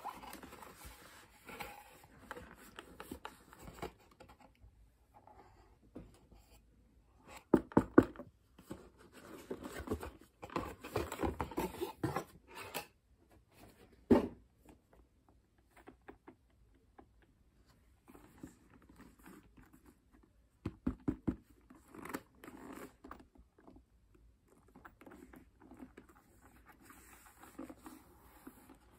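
Cardboard packaging being opened and handled, scraping and rustling, with a few sharp knocks as a hard-shell instrument case is lifted out of the box and turned over.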